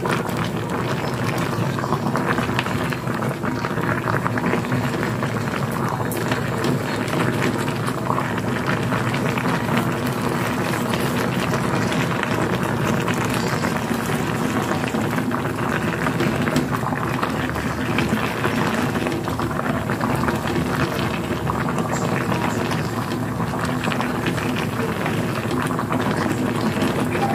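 Pot of jackfruit cooking in coconut milk, bubbling steadily while it is stirred and turned with wooden spatulas. Fine crackling runs through the bubbling, over a faint steady low hum.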